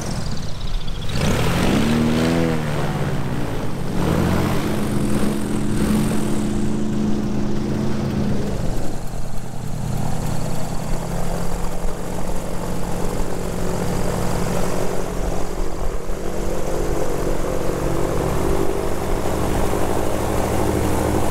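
Airboat's engine and big air propeller running as it passes, the pitch dipping and rising over the first few seconds, then running steadily.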